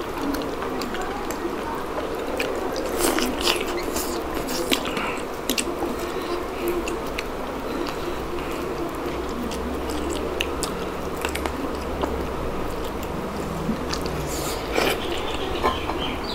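Close-up chewing and biting of chicken curry and dhido, with wet mouth sounds and scattered clicks, over a steady low background hum.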